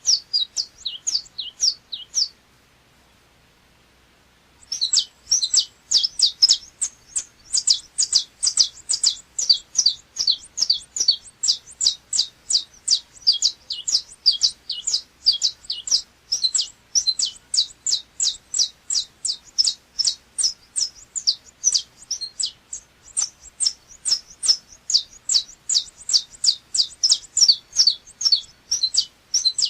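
Saffron finch of the 'chapinha' type (Brazilian canário-da-terra) singing: fast runs of sharp, high notes at about five a second. The song stops about two seconds in, then resumes two or three seconds later in one long unbroken run.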